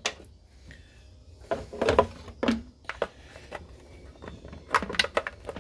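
Hard plastic clicking and knocking as a bulb socket is handled and fitted into a Jeep Grand Cherokee ZJ's plastic lamp lens: a handful of separate clicks, bunched about two seconds in and again near the end.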